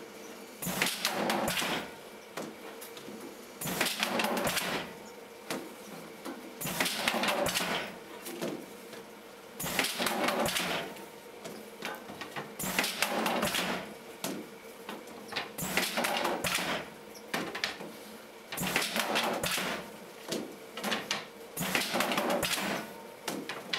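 PLUG 1800 stretcher-bar frame assembling machine working through its cycles: a burst of clattering mechanical knocks about every three seconds as wooden bars are fed and joined into a frame, over a faint steady hum.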